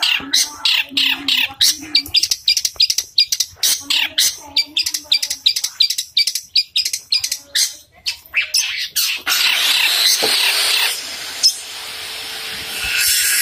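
Long-tailed shrike (cendet) singing a fast run of short, sharp chirping notes, several a second, in the sparrow-imitating style its keepers call 'suara gereja'. From about nine seconds in, a steady harsh rushing noise takes over.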